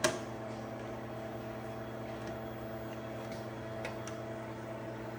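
A TRS-80 Model II microcomputer running, giving off a steady hum of several evenly spaced tones. A sharp click right at the start, and a couple of faint ticks later on.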